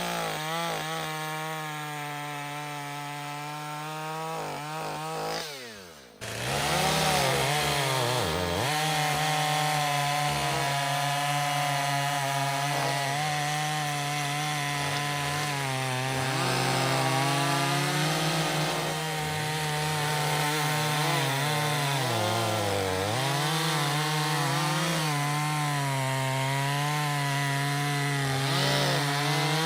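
Two-stroke petrol chainsaw running at high revs and cutting wood, its pitch dipping and recovering several times as the chain bogs in the cut. There is a short break about six seconds in.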